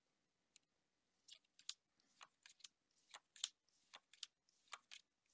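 Magic: The Gathering cards being handled, a faint run of irregular light clicks and snaps as cards are slid and flicked against each other, starting about a second in.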